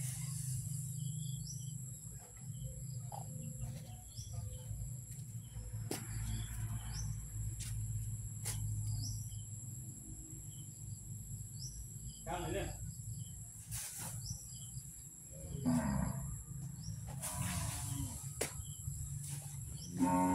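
Low rumbling calls from a bull Asian elephant in musth, with two calls falling in pitch, the louder one at the very end, over a steady high trill of insects.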